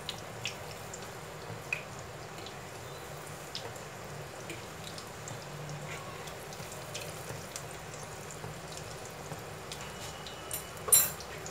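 Mysore bondas deep-frying in hot oil: a steady sizzle with scattered small pops and crackles. A short, sharp clatter comes near the end.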